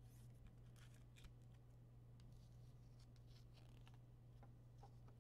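Near silence: a steady low hum with faint, scattered rustles and ticks of trading cards and pack wrappers being handled.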